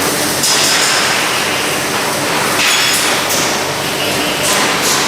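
Sheet-metal factory floor din: a steady machinery noise broken by several sharp metallic clanks and bangs a second or so apart.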